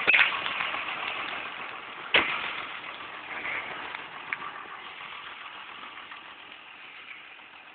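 John Deere 6830 Premium tractor's diesel engine running steadily, growing fainter as the microphone moves away from the bonnet. Two sharp knocks are heard, one at the start and one about two seconds in.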